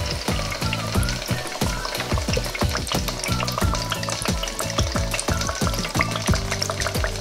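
Block of dry ice bubbling and fizzing steadily in heated water in an electric skillet, a constant rapid gurgle of many small pops as the carbon dioxide boils off into fog.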